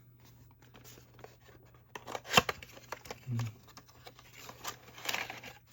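Rustling and scraping of a small blind-box toy package being unpacked by hand, with a sharp click about two and a half seconds in.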